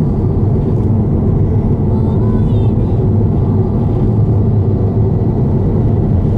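Steady road and engine noise inside a car's cabin cruising on an expressway, a deep even rumble with no breaks.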